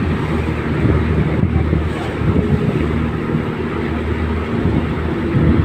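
A river ferry's engine running steadily under way, a low, even hum, with water and wind noise over it.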